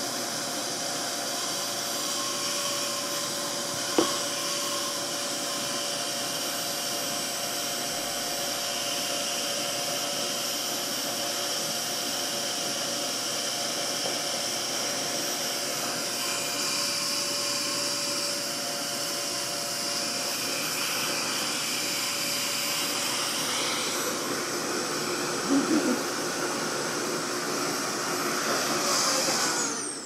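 RevAir reverse hair dryer running steadily on speed setting 2: its suction motor pulling air through the hose and wand makes a constant vacuum-like whoosh with a faint steady whine, as it draws wet hair into the wand and dries it with unheated air. One sharp click about four seconds in.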